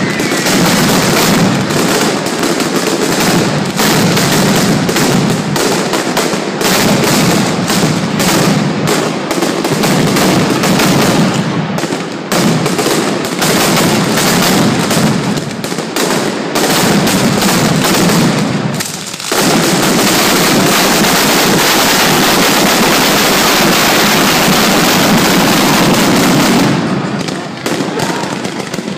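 Mascletà firecrackers (masclets hung in strings) going off in a rapid, continuous barrage of bangs. About 19 seconds in, the bangs run together into one unbroken din for some seven seconds before it eases near the end.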